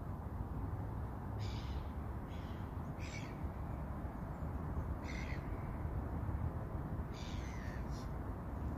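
Crows cawing: six short, harsh caws at uneven intervals over a steady low rumble.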